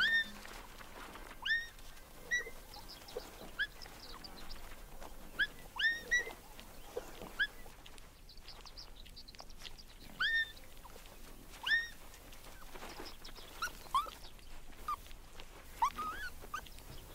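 Black-backed jackal pups whimpering while they suckle. Short, high, squeaky calls, each sweeping up and then levelling off, come a dozen or more times at irregular intervals.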